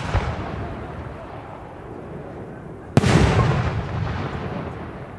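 Aerial firework shells bursting. The rumbling echo of one bang fades at the start, and a single loud bang about three seconds in rolls off in a long echo.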